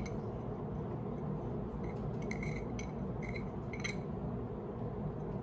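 A thin metal pick tapping and scraping in the teeth of a tobacco grinder, clearing out stuck tobacco: a few faint, light clicks, most of them in the middle of the stretch. Under them is a steady low background hum.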